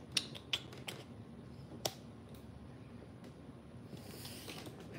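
A few short, light clicks in the first two seconds, then quiet room tone with a soft rustle near the end.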